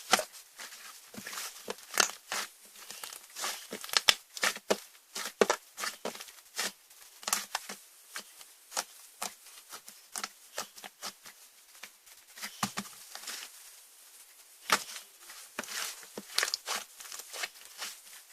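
Slime being squished and pressed by hand, giving irregular sharp clicks and pops several times a second; the loudest snaps come about 2 s and 4 s in and again near 15 s.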